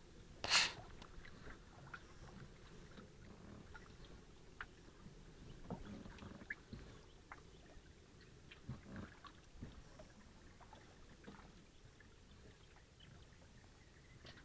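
Small boat being paddled quietly: soft, irregular oar splashes and faint knocks, with one loud sharp noise about half a second in.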